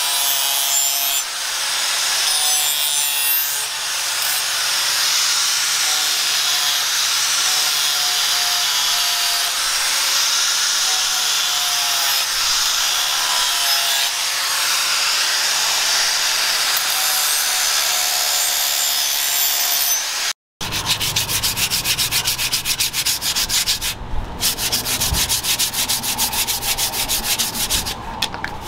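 Angle grinder with a sanding disc grinding and polishing a steel sickle blade: a steady hiss over a faint motor whine. About twenty seconds in it cuts off, and fast, even rubbing strokes on the wooden handle follow.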